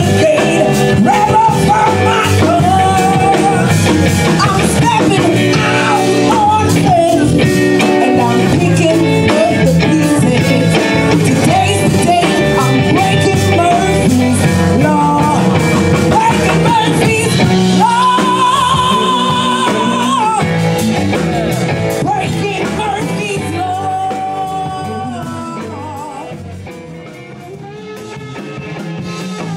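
Live blues band: a woman sings over electric guitar, bass guitar and drums. Near the end the singing stops and the music drops quieter for a moment before the band swells back up.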